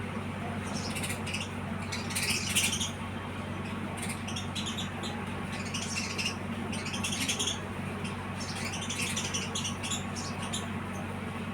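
House sparrows chirping in bursts every second or two, loudest about two and a half seconds in, over a steady low hum.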